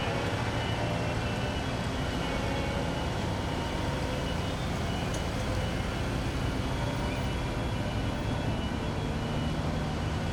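Steady road traffic noise with heavy vehicle engines running, even throughout with no sudden events.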